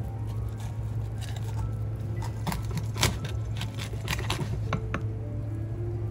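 A kitchen knife cuts into a whole blackthroat seaperch (nodoguro) on a wooden cutting board, making a run of sharp cracks and clicks as the blade works through the fish's bones. The loudest crack comes about three seconds in.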